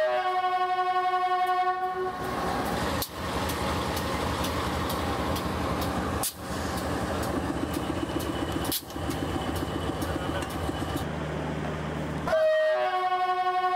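Diesel locomotive horn sounding a chord of several steady notes for about two seconds, then sounding again near the end. Between the blasts there is steady engine and rail-yard noise, with a rapid pulsing in the middle.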